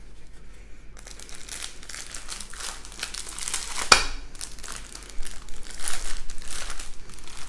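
Plastic bags of diamond-painting drills crinkling as they are worked open, starting after about a second. There is a sharp click about four seconds in, and the crinkling grows louder over the last couple of seconds.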